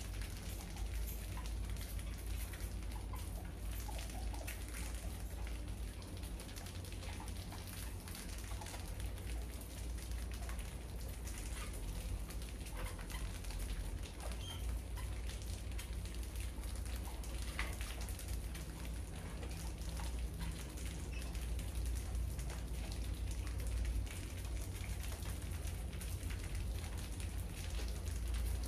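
Many mice scurrying over a grain-strewn floor and a wire-mesh trap, making a dense patter of small clicks and scratches with occasional faint squeaks, over a steady low hum.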